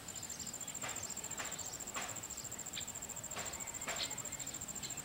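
An insect trilling steadily at one high, even pitch, with short soft swishes every half second or so.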